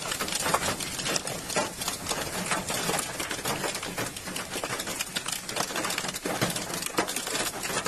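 Hailstones pelting down in a storm: a dense, irregular clatter of small hard impacts.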